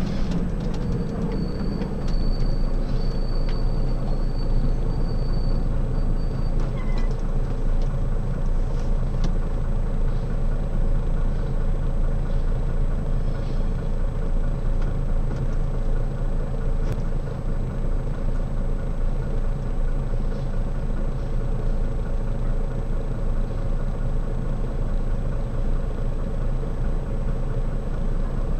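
Delivery truck's engine idling, heard from inside the cab: a steady low hum.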